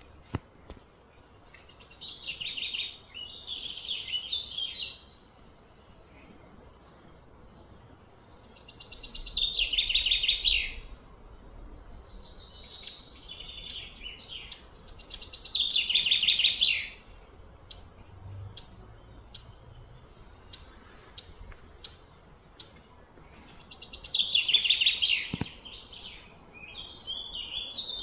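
High, trilling animal song in repeated phrases. Each phrase swells over a second or two and stops short, four or five times with pauses of several seconds between them.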